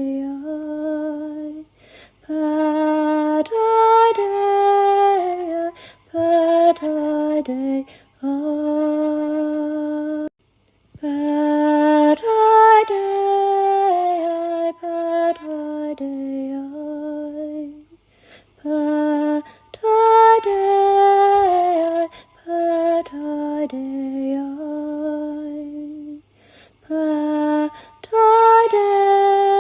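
A solo female voice singing unaccompanied in a slow, lullaby-like chant, holding long notes in short phrases separated by brief pauses.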